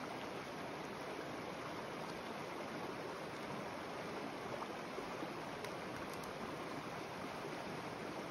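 Small mountain creek flowing over rocks: a steady, even rush of running water.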